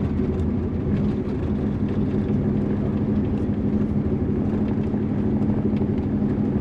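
Car engine and road noise heard inside the cabin of a moving car, a steady low hum with a droning note; it cuts off suddenly near the end.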